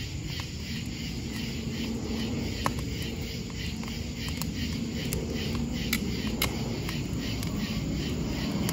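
Night insects chirping in a steady pulsing drone over a low rumble, with a few sharp pops from a small wood fire crackling in a fire pit.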